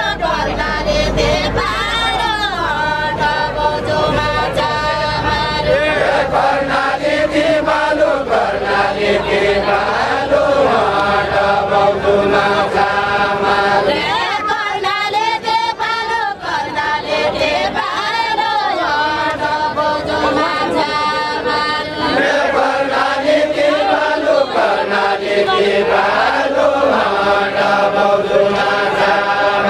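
A group of voices singing a Nepali deuda song together, without instruments, in long phrases that rise and fall.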